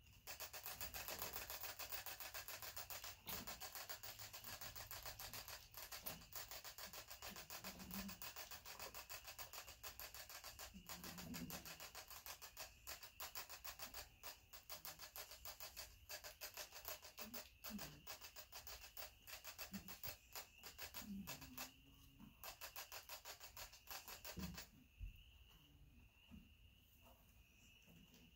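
Pet rat scratching rapidly and steadily on bedding or wood, stopping a few seconds before the end.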